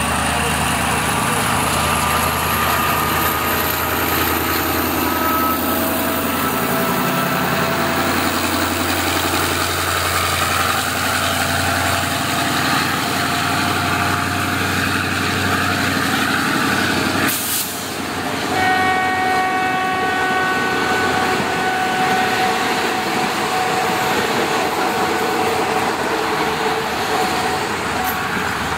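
Diesel-hauled passenger train arriving at the platform, its engine note dropping as it slows. About two-thirds of the way through there is a short loud burst of noise, followed by a steady high-pitched whine.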